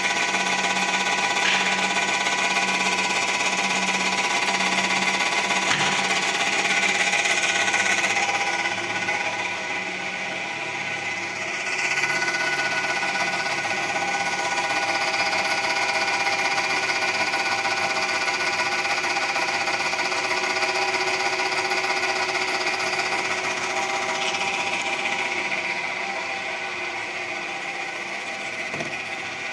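Electric motor running with a rhythmic knock from its front bearing, a fault that shows when the motor is started after storage.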